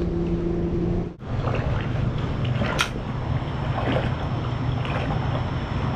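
Steady hum of a boat's electric trolling motor over wind and water noise. It drops out briefly about a second in, then carries on slightly lower in pitch, with one sharp click near the middle.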